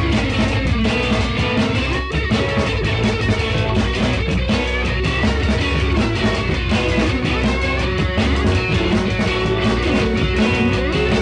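Rock music with electric guitar and drum kit and a steady beat.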